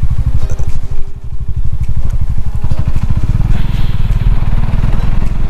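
Motorcycle engine running steadily while the bike is ridden, its rapid, even exhaust pulses dominating.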